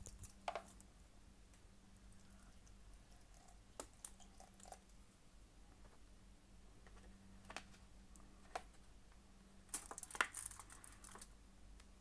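Near silence: a low steady hum with a few faint, scattered clicks and light taps from handling, a small cluster of them about ten seconds in.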